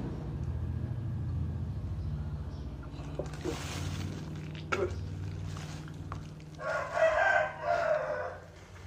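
A rooster crows once, a drawn-out call about seven seconds in and the loudest sound here, over a low steady motor-like hum. A plastic bag rustles briefly about three and a half seconds in.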